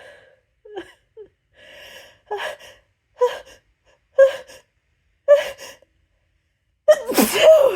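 A person's sneeze build-up: a few soft breaths, then four sharp catching gasps about a second apart, each louder than the last, ending in a loud sneeze near the end.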